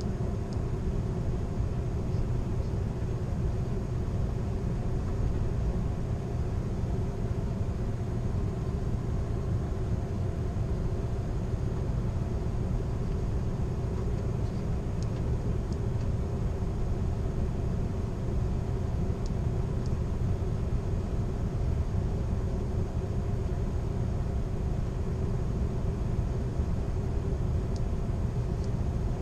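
Steady rumble of an Amtrak Superliner passenger car rolling along the track, heard from inside the car at its rear window, with a faint steady hum under it and a few light ticks.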